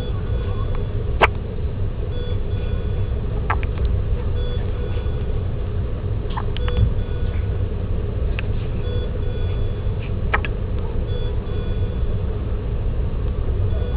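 A premature baby's small hiccups, short sharp catches about every two seconds, heard over a steady low rumble with faint repeated electronic beeps.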